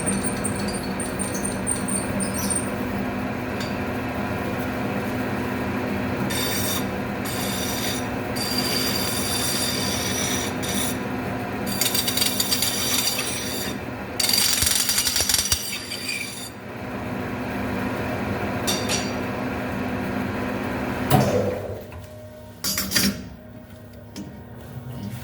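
Metal lathe running with a steady motor hum while a cutting tool scrapes on metal, the scraping coming and going in high-pitched stretches. Near the end the lathe stops, followed by two clunks.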